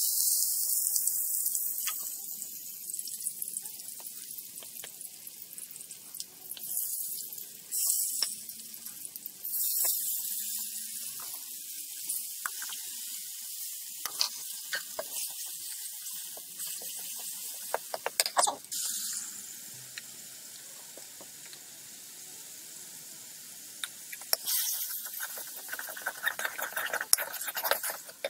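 Sliced onions hitting hot oil in an iron wok set up a loud sizzle that starts suddenly. It keeps sizzling, with flares and scattered clicks and scrapes of a metal spatula stirring in the pan. Water poured into the hot pan partway through adds hissing.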